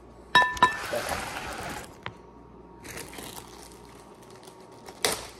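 Cast iron skillet set down on a stone countertop: two sharp clanks that ring briefly. Then a plastic bag rustling and crinkling as it is handled, with one sharper crinkle near the end.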